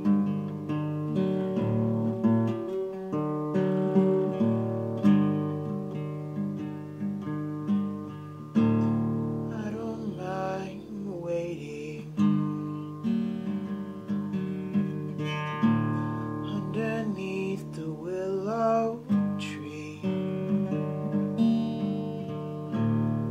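Steel-string acoustic guitar playing chords in a slow, steady passage of an original song. A voice sings briefly twice over it, around ten and eighteen seconds in.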